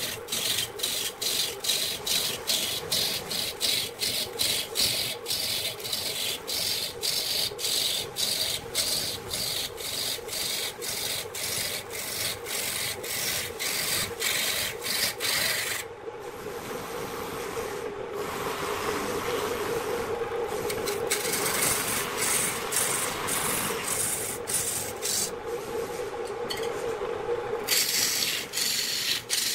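Wood lathe spinning a large cylindrical wood blank while a hand-held turning tool cuts and scrapes it, with rhythmic knocks at about three a second. From about halfway to near the end the cut runs smoother and steadier without the knocks, and they return at the end.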